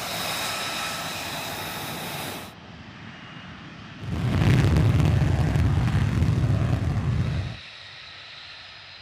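F-35B jet engine, an F135 turbofan, running: a loud whine with high steady tones that cuts off abruptly, then after a quieter stretch a much louder low roar for about three and a half seconds, settling back to a fainter whine.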